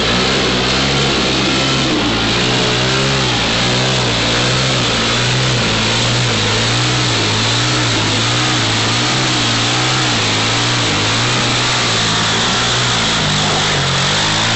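Quad bike (ATV) engine revving up and down over and over as it drives through deep mud, its pitch rising and falling about once a second.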